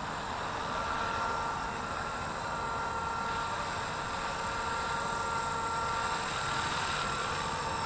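Blade 230S V2 electric RC helicopter hovering low, its motor and rotors giving a steady high whine over a rushing noise; the whine's pitch shifts slightly a few times as the pilot works the controls.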